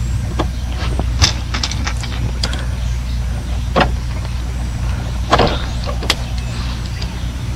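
Scattered clicks, taps and knocks of a hand tool and plastic parts as a pressure-fit part is worked loose under a car's steering column, over a steady low hum.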